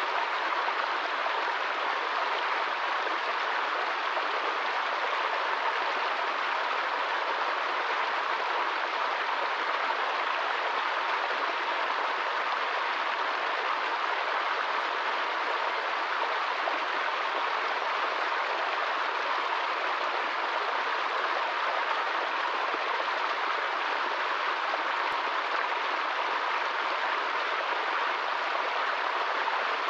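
Small woodland stream splashing over rocks in a little cascade: a steady running-water sound.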